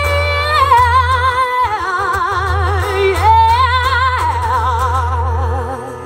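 A woman singing long, wordless held notes with a wide vibrato over a sustained low accompaniment note, closing out a song. The low note cuts off near the end.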